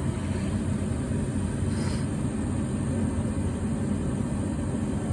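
Car engine idling steadily, a low, even drone.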